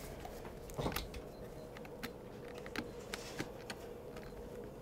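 Faint scattered clicks and taps of a metal came edging strip being worked onto the edge of a stained glass panel, the biggest click about a second in, over a faint steady hum.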